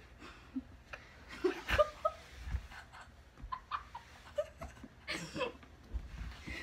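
Stifled giggling and snickering in short, scattered bursts.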